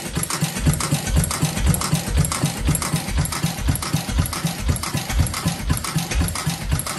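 6 hp International Harvester Mogul single-cylinder stationary engine running unmuffled on gasoline, giving a steady, even chuffing beat of exhaust and crank knocks, about two strong beats a second. This is the engine's first run after restoration.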